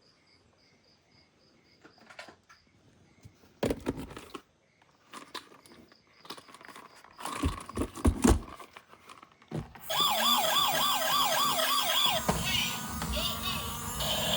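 Plastic toys knocking and clicking as they are handled. About ten seconds in, a toy emergency vehicle's electronic siren starts up loud, a fast warbling wail.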